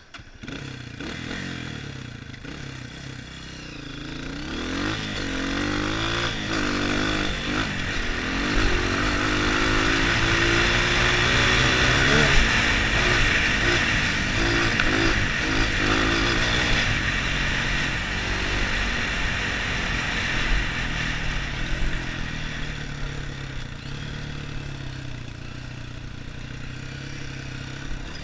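Dirt bike engine pulling hard, its revs climbing and dropping again and again as it works through the gears, then running steadier in the last third. A rushing wind noise on the helmet-mounted microphone is loudest at top speed.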